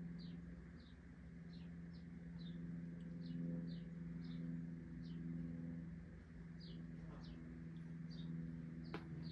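A bird chirping over and over, short falling chirps about two a second with a brief pause in the middle, over a steady low hum. A couple of clicks near the end.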